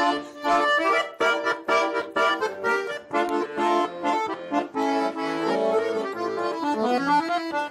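Instrumental break between the sung verses of a Russian folk-style song: a quick melody over steady rhythmic chords.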